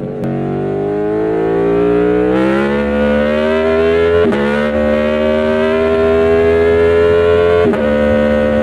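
Aprilia Tuono V4 1100's V4 engine pulling hard under acceleration, its note climbing in pitch. It shifts up about four seconds in and again near the end, the pitch dropping at each change before climbing again.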